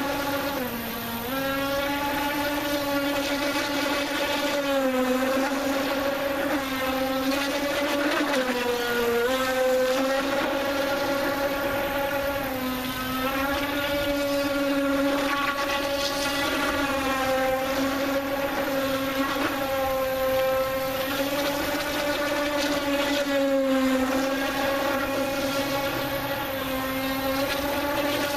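Brushless electric RC boat running at speed: a steady high motor whine that dips briefly in pitch every few seconds as the throttle changes.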